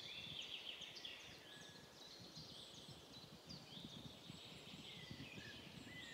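Faint birdsong of small birds, a run of quick high chirps and short whistles, over a low uneven rumble of wind.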